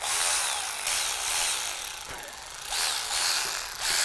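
Milwaukee M12 3/8-inch cordless electric ratchet running, its motor whirring in several trigger bursts with brief dips between.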